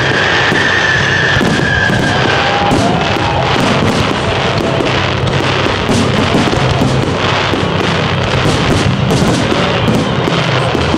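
A dense fireworks barrage: many shells bursting at once in rapid, overlapping bangs and crackling. A high steady whistle sounds through the first two seconds.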